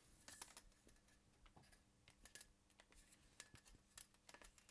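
Near silence with faint, irregular light clicks and taps, the sound of small objects being handled.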